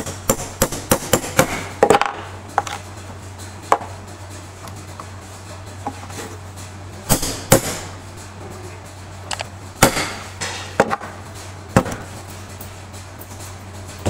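Hammer blows on a pipe driver seating a new ball bearing onto an electric motor's rotor shaft: sharp metal knocks in irregular clusters of light taps, with a few harder blows in the middle.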